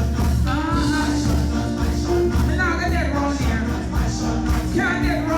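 Live gospel worship music with a sung voice over a band with a steady, heavy bass.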